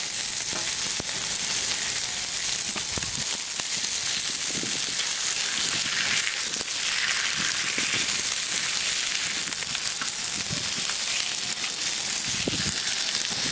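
Masala-coated pomfret sizzling steadily as it shallow-fries in hot oil in a pan. A few soft knocks of a wooden spatula come now and then as the fried fish is lifted out.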